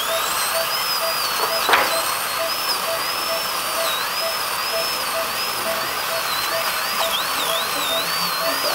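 High-speed dental handpiece whining as its bur cuts a primary molar for a crown preparation, the pitch wavering up and down as the bur loads and eases, over a steady hiss. A short click comes about two seconds in, and a faint beep repeats about twice a second throughout.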